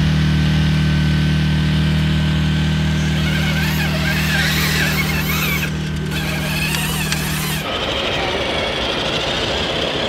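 Steady, unchanging low engine drone, like an engine idling at one constant pitch. About seven and a half seconds in it cuts off abruptly and gives way to a different, noisier background without the drone.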